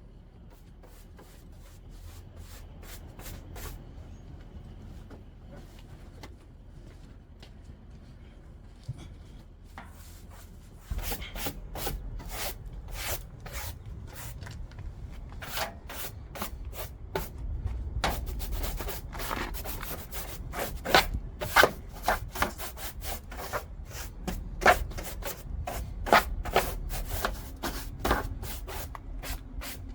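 Broom sweeping sand and dirt across a floor in repeated brushing strokes. The strokes are soft at first, grow louder about a third of the way in, and come faster and stronger after the midpoint.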